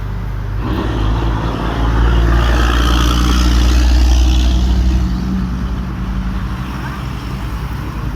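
GD 45 horizontal directional drilling machine's engine running steadily. It works harder from about a second in, gets louder toward the middle, and eases back down after about five seconds.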